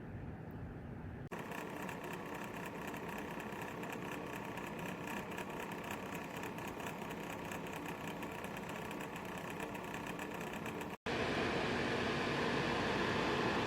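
BLACK+DECKER 1500 W ceramic space heater's fan running with a steady whir and a fast, even flutter. The sound breaks off abruptly about a second in and again near the end, then carries on as a smoother, louder whir.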